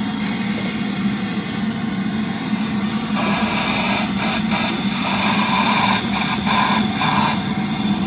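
Milwaukee vacuum running with a steady motor hum; from about three seconds in its airflow hiss gets louder and rises and falls in patches.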